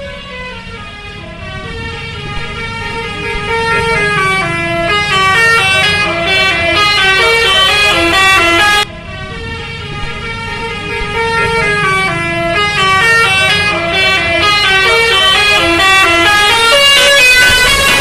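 Indonesian 'telolet' multi-tone bus horn playing a quick stepped melody, growing louder over the first few seconds. The tune breaks off about nine seconds in and starts over. Engine rumble runs underneath.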